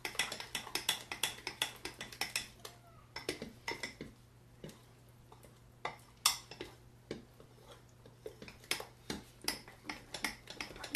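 Danish dough whisk stirring thick sourdough starter vigorously in a glass bowl: rapid, irregular clicks and knocks of the metal whisk against the bowl. They thin out in the middle and pick up again near the end.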